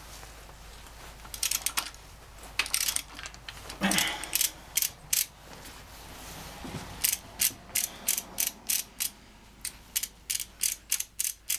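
Ratchet wrench clicking as it tightens a bolt on an engine oil pump, with a few scattered clicks at first, then a steady run of quick clicks, about three a second, from about seven seconds in.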